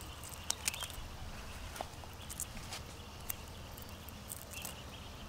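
Raw whole shrimp being peeled by hand: scattered faint clicks and crackles as the shells snap off, over a low steady background.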